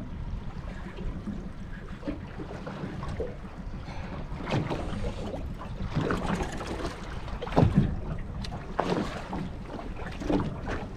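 Wind buffeting the microphone over water lapping at a small aluminium boat. From about halfway, a hooked queenfish thrashes and splashes at the surface beside the boat in several short bursts.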